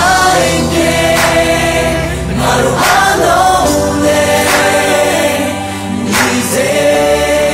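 Pop song chorus sung in Burmese by a mixed group of male and female voices together, over a band backing with drums.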